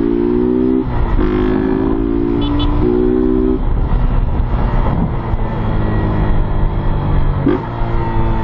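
Motorcycle engine running under way, climbing in pitch and then dropping off sharply several times, as at gear changes, with a steady low rush of wind and road noise.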